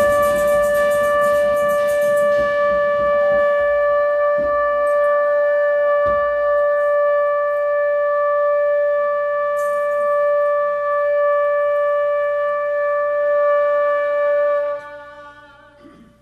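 A shofar sounding one long, steady blast at a fixed pitch. It is brighter for the first couple of seconds, then holds evenly and cuts off near the end, leaving a short fading echo.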